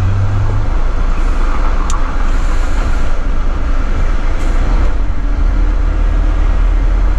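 Volvo FH12 480's diesel engine running as the truck drives, heard inside the cab as a steady low drone under road and wind noise; the engine's low note changes less than a second in.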